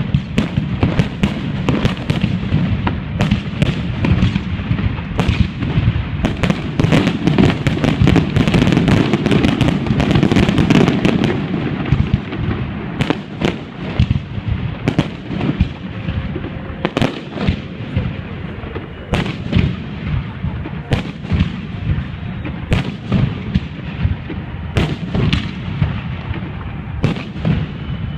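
Fireworks display: a rapid string of bangs and crackling. It is densest and loudest for several seconds about a quarter of the way in, then thins to separate bursts.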